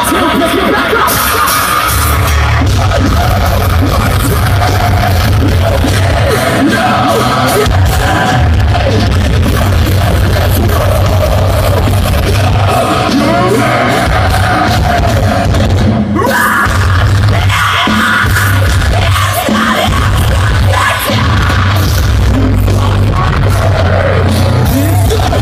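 Metalcore band playing live and loud, with heavy guitars and drums under a singer's vocals that are sung and yelled, heard from within the crowd.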